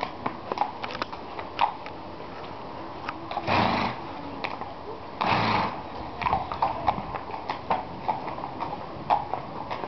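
Horse's hooves beating on the arena surface as it canters a showjumping course, a string of short irregular knocks. About three and a half and five and a half seconds in come two louder breathy whooshes, each about half a second long.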